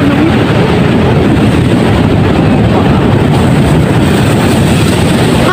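Loud, steady wind noise rumbling on the microphone over ocean waves washing onto the shore.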